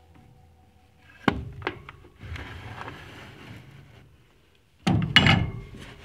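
Pocket knives and a cloth towel being handled on a wooden workbench: two sharp clicks a little after a second in, then cloth rustling, and a louder knock with more rustling near the end.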